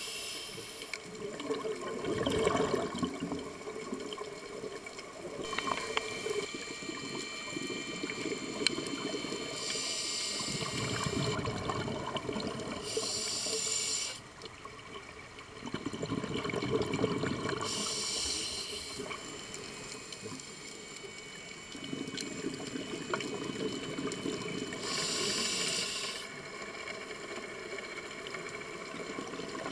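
Scuba breathing underwater through a regulator, heard through a camera's underwater housing: a steady watery murmur broken every few seconds by bursts of hiss and bubbling as breaths are drawn and exhaled bubbles rush out.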